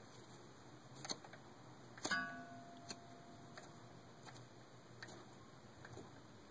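Accessory pulleys on a 2001 Jeep Wrangler's 4.0-litre straight-six, serpentine belt off, being spun by hand to check for a bad pulley: light ticks and clicks, with a sharper metallic clink about two seconds in that rings briefly.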